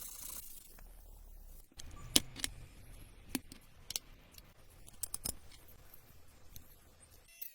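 Irregular sharp clicks and light metallic taps of small parts being handled, the loudest a little after two seconds in, following a short stretch of hiss at the start.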